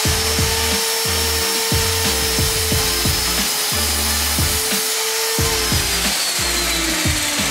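Kobalt sliding miter saw running with a steady whine as the blade chops through a wooden trim piece, then winding down in a falling pitch once released, about two-thirds of the way in. Background music with a steady bass beat plays under it.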